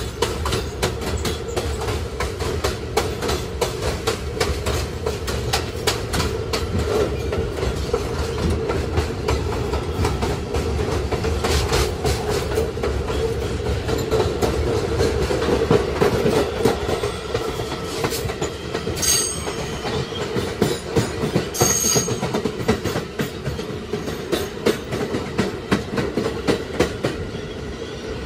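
Kawasaki R211A subway car running on the track: steady running noise with a rapid clatter of wheels over rail joints, and two brief high wheel squeals a little past the middle.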